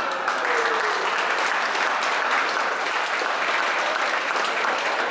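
A small crowd applauding, steady clapping throughout.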